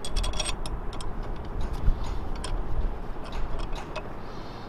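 Small metal bolts, nuts and washers clicking and clinking as they are handled and finger-tightened on a cast iron pump housing, in scattered clusters of ticks, with a dull low bump about two seconds in.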